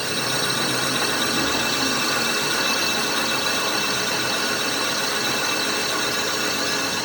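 Workshop machinery running steadily: a continuous mechanical noise with a few steady high whining tones.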